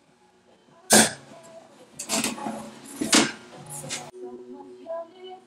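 Louver press punching louvers into aluminium sheet: about four sharp strokes, roughly one a second.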